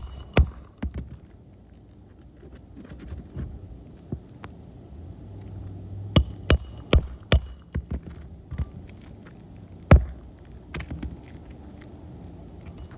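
Hammer driving roofing nails into a 3-tab shingle: a couple of strikes in the first second, a quick run of four ringing blows about six seconds in, then one hard final blow at about ten seconds.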